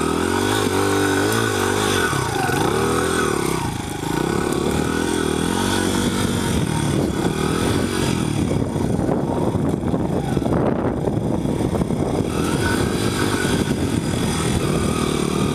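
Honda CRF100F dirt bike's small four-stroke single-cylinder engine running under throttle, revving up and easing off again and again as the bike rides over rough ground.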